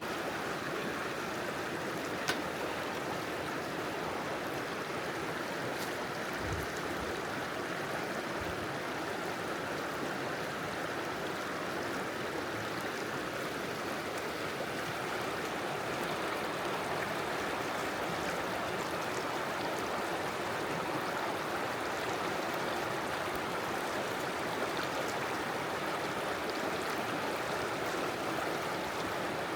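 River water rushing steadily over rocks, an even unbroken sound, with a single faint click about two seconds in.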